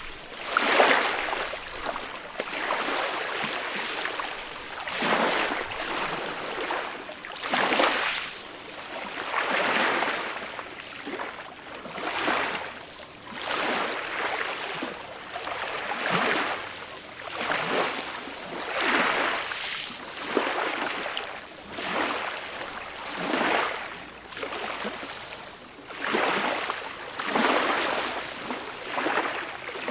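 Small, gentle waves breaking and washing up the shore, each one swelling and falling away roughly every two to three seconds.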